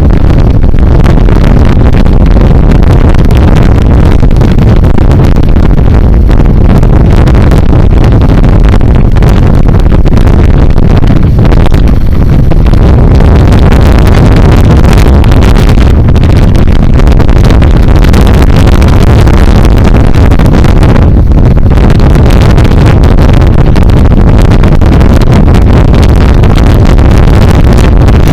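BMW G 650 GS motorcycle's single-cylinder engine running while being ridden off road, loud and steady.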